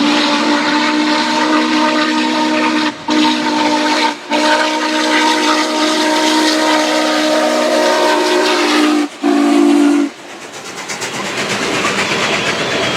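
Train whistle sounding a steady two-note chord in long blasts, broken briefly twice, then a short final blast that ends about ten seconds in. After it, the noise of the train running on the rails grows louder.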